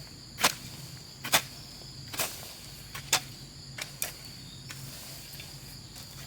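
Sharp, irregular knocks, about six over the span, with uneven gaps between them, typical of tool strikes on bamboo or wood during building work. A steady, high insect drone runs underneath.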